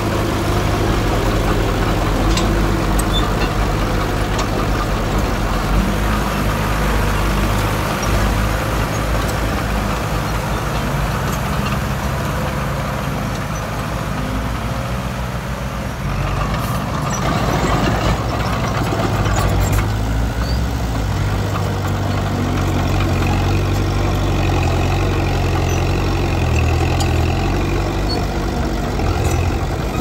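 Komatsu D20P crawler bulldozer's diesel engine running steadily, easing off briefly about sixteen seconds in, then picking up again.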